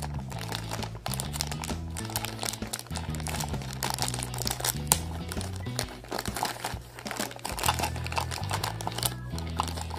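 Thin clear plastic wrapping crinkling and tearing in quick crackles as it is pulled off a small plastic toy capsule, over background music.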